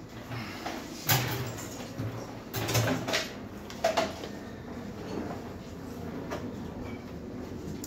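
A few sharp knocks and clatters in the first four seconds as parts and tools are handled and set down on a kitchen counter and cooktop, then quieter handling.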